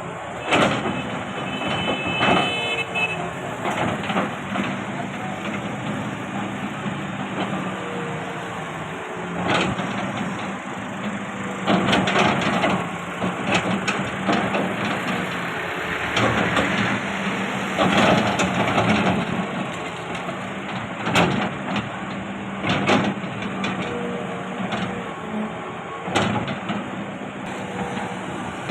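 Excavator's diesel engine running steadily under load, with repeated scraping and knocking of the bucket digging into soil.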